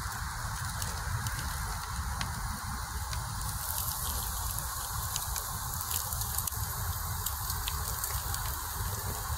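Potatoes frying in a metal pan on a grill: a steady sizzling hiss with scattered sharp crackles.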